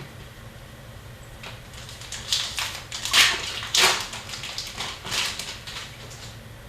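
Crisp rustling and crinkling of hockey trading-card packs and cards being handled, in a string of short bursts over a low steady hum.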